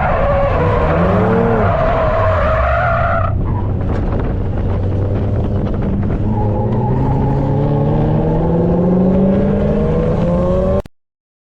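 Car engine running hard, its pitch changing abruptly about three seconds in, then rising steadily as it accelerates, until the sound cuts off suddenly near the end.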